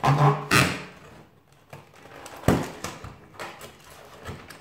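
Cardboard advent calendar door being torn and pried open by hand: a loud rip of thin card within the first second, then quieter crackling of the card and a sharp knock about two and a half seconds in.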